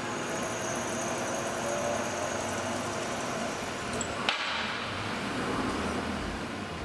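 CNC lathe turning a steel shaft under flood coolant: steady machining noise with coolant spray hiss and a thin high whine, and one sharp tick about four seconds in.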